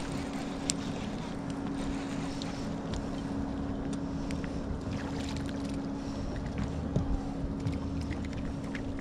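Boat motor running steadily with an even hum, a few light clicks on top.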